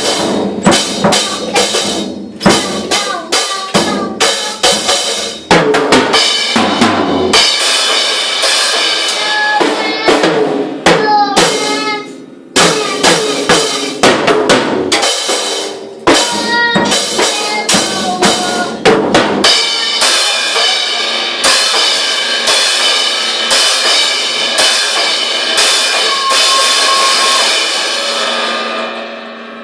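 Drum kit played by a five-year-old boy: loud, irregular bass-drum, snare and cymbal hits, with cymbals ringing between strokes.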